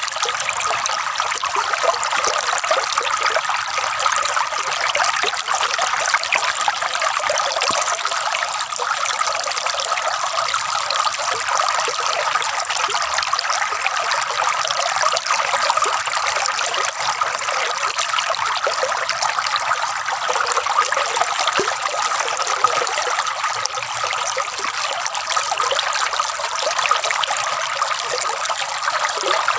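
Flowing water trickling and gurgling, steady and unbroken throughout.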